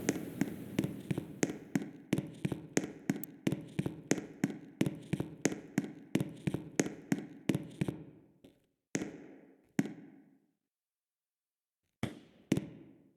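Fire alarm bell giving single ringing strokes, about three a second, growing fainter until they stop after about eight seconds. A few more separate strokes follow, two of them near the end.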